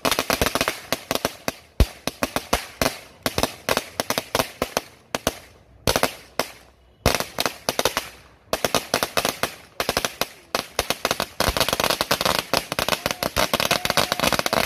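A long firecracker string, a Legend-brand 1000-round roll, going off on the ground: rapid volleys of sharp bangs in clusters with short breaks, becoming almost continuous in the last few seconds.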